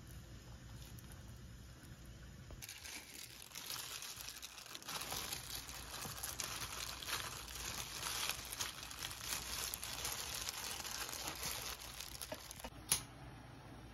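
Thin disposable plastic gloves crinkling as gloved hands lay in a sausage and roll gimbap, starting about three seconds in after a quiet stretch. One sharp click near the end.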